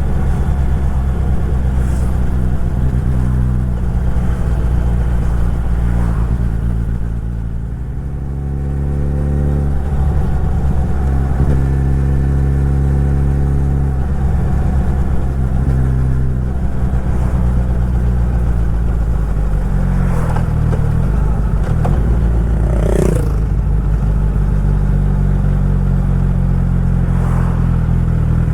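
Suzuki Hayabusa's inline-four engine running under way, its pitch dropping and rising again a few times with throttle and gear changes.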